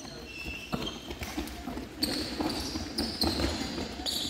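Korfball being played on a hall court: dull thuds of the ball and short squeaks of players' shoes on the floor.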